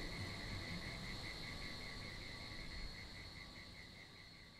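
Insects chirping in an ambience bed: a steady high trill with a pulsing chirp about five times a second over a low rumble, fading out toward the end.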